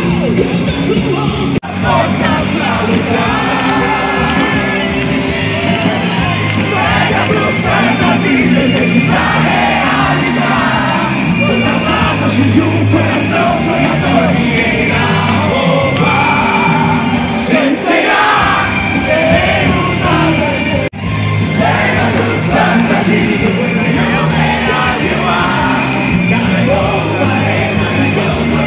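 Live band music with a lead singer, and a crowd yelling and cheering along. The sound breaks off for an instant twice, about two seconds in and again about two-thirds of the way through.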